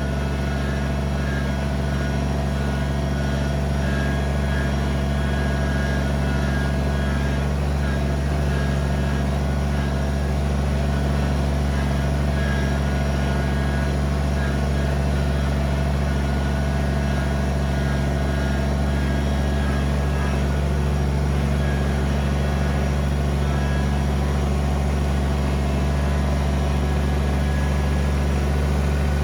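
Kubota BX23S compact tractor's three-cylinder diesel engine running at a steady speed, holding level without revving up or down.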